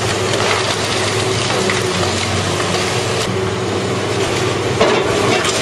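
Heavy demolition machinery running steadily: a diesel engine note under a dense, rough wash of noise.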